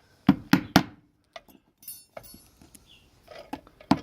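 Three quick, sharp taps about a quarter of a second apart near the start, then a few fainter clicks and a light scrape: a pin being tapped into a padlock body.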